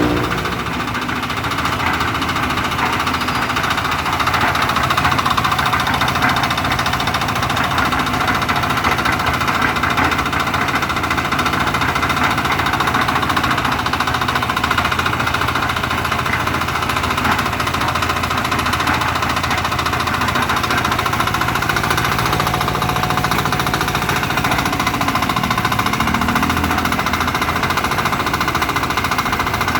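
Engine of a one-bagger concrete mixer running steadily with a knocking, rattling mechanical note.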